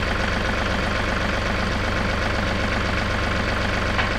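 John Deere 2038R compact tractor's three-cylinder diesel engine running steadily.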